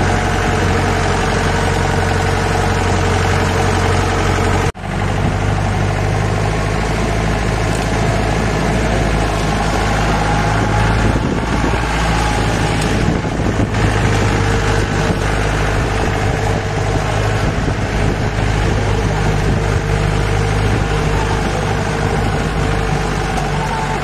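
4x4 jeep's engine running steadily with a steady rush of noise over it. The sound drops out for a split second about five seconds in.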